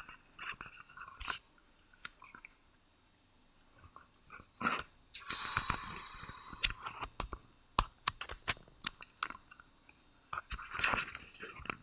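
Handling noise from a camera being moved and repositioned: scattered clicks, knocks and scrapes on the microphone, with a longer rustling scrape about five seconds in.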